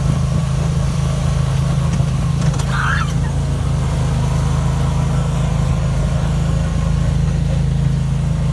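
Riding lawnmower engine running steadily, a constant low drone.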